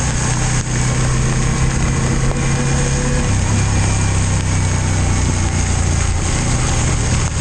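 Yamaha MT-15's single-cylinder engine running while the motorcycle is ridden, over a steady rush of wind and road noise. The engine note drops about three seconds in.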